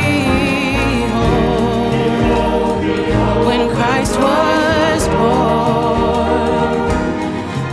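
Choir singing a gospel-style Christmas piece with instrumental accompaniment and a steady bass line.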